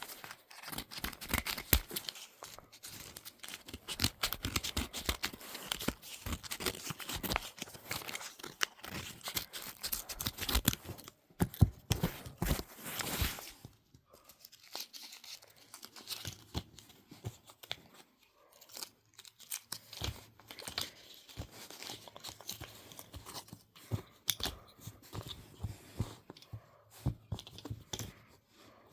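Packaging being torn open and crinkled by hand, a dense run of crackling and tearing for about the first half, then sparser crackles and clicks as the handling slows.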